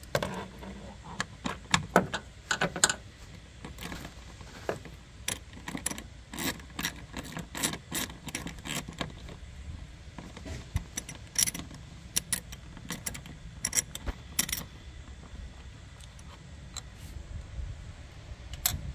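Scattered light clicks and clinks of small metal parts being handled: loose Torx screws and a ratchet picked up and set down on hard plastic, irregular and sharp, over a low steady background.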